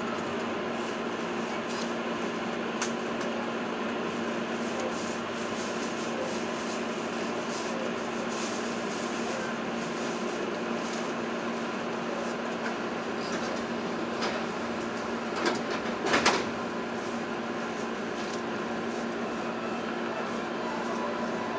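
Steady hum inside a Sanyo Electric Railway train's cabin as it stands at a station, with a few faint clicks and a short cluster of louder knocks about sixteen seconds in.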